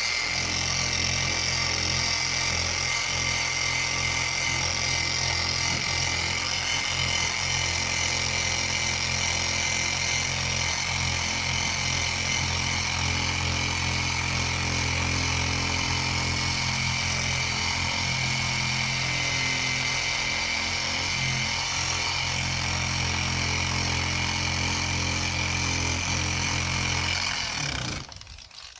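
Small electric polisher fitted with a 1200-grit sanding disc on an interface pad, running steadily at a low speed setting while wet-sanding the old clear coat off a plastic headlight lens. It shuts off suddenly near the end.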